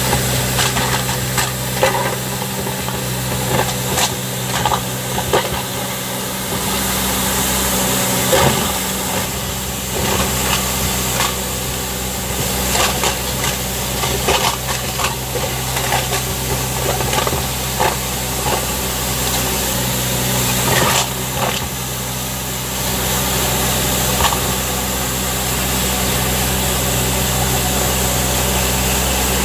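Mathieu MC110 compact street sweeper running with a steady low hum from its engine and suction fan, while its rotating side brushes and suction nozzle take up plastic cups, bottles and paper litter with frequent clatters and knocks. The clatters thin out over the last several seconds, leaving mostly the steady machine hum.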